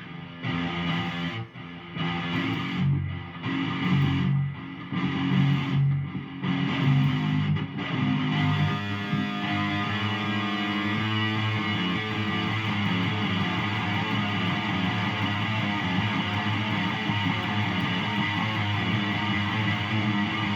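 Heavily distorted electric guitar tuned down to drop F#, playing low, choppy riffs with short breaks for about the first eight seconds, then letting a held, ringing sound sustain steadily for the rest.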